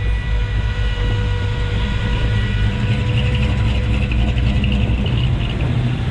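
Deep, steady rumble of car engines running. A faint high buzz comes in briefly about halfway through.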